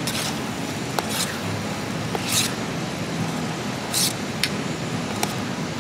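A spoon stirring and scraping sliced mushrooms and masala in a camping cook pot: several short scratchy scrapes with a few light knocks of the spoon against the pot. A steady rushing noise runs underneath.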